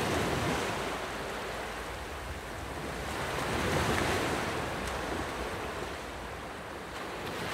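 Surf on a beach: a steady rush of waves that swells to a peak about four seconds in and then eases off.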